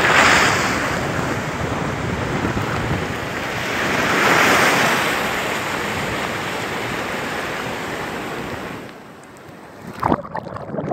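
Ocean surf breaking and washing in, the rush swelling at the start and again around four to five seconds in, then dropping away near the end. A few brief sharp sounds come in the last second.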